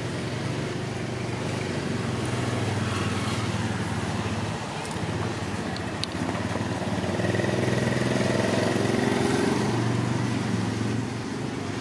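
An engine running with a steady low hum, its pitch rising somewhat for a few seconds past the middle.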